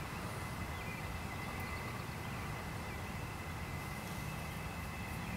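Steady outdoor field ambience: a low rumble with two thin, steady high tones held over it.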